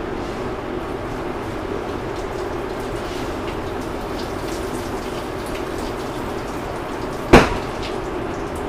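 A steady rushing noise with faint crackles, broken about seven seconds in by one sharp, loud metallic clank that rings on briefly.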